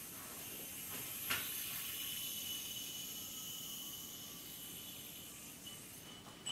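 MVP yoyo spinning on its string, a steady high-pitched whir that fades about six seconds in. A sharp click about a second in as the yoyo hits the string, and another click right at the end.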